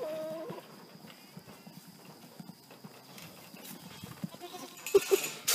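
Goats playing with a large inflatable ball. A short goat call comes at the start, then soft shuffling, and a couple of loud short sounds near the end.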